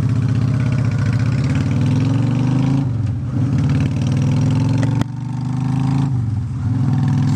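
Honda Shadow V-twin running through aftermarket Vance & Hines Cruisers exhaust pipes while riding. The exhaust note dips briefly about three seconds in, then drops suddenly with a click about five seconds in and builds back up, as when the throttle is closed and reopened.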